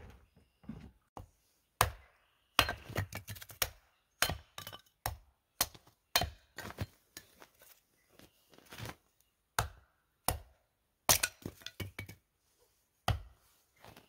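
Hatchet splitting kindling on a wooden chopping block: a run of sharp, irregularly spaced chops, some followed by quick cracks as the split sticks fall.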